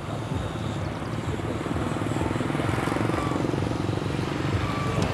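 A small motor running steadily with a fast, even pulsing, slowly growing louder.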